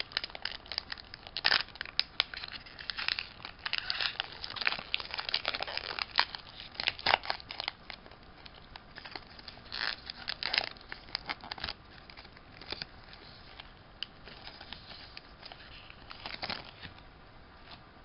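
Foil wrapper of a Pokémon trading card booster pack crinkling and tearing as it is opened by hand: dense crackling for the first half, then scattered bursts of crinkling that thin out near the end.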